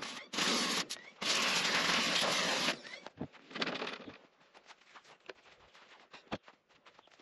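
Stanley SXPW22E electric pressure washer spraying in three short bursts as the trigger is pulled and released, then stopping a little under three seconds in. After that come only faint scrapes and clicks of handling.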